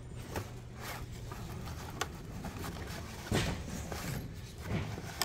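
Cardboard gift box being handled: irregular scrapes and rustles as its end flap is opened and a plastic-wrapped package is slid out, over a steady low hum.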